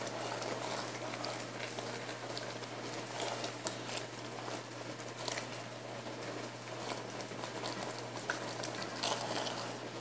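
Chicken pieces in a thick sauce sizzling and simmering in an enamelled pot while they are stirred and turned with spatulas, with scattered clicks and scrapes of the spatulas against the pot. A steady low hum sits underneath.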